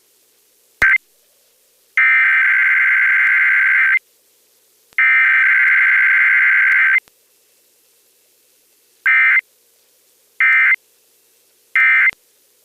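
Emergency Alert System SAME data bursts: a short burst, then two long buzzing data bursts of about two seconds each, typical of the digital header of a required weekly test, then three short end-of-message bursts about 1.4 s apart.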